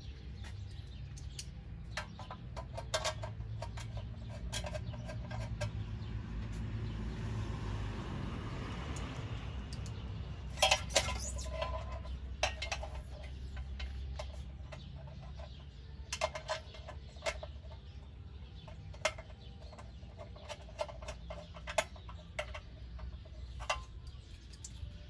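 Hand-tool assembly on a small engine: scattered clicks and clinks of bolts, wrenches and a nut driver, and the plastic blower housing knocking as it is fitted and its bolts are started by hand, with a louder cluster of knocks about eleven seconds in.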